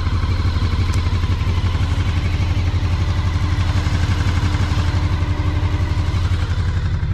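Honda VFR750's V4 engine idling steadily.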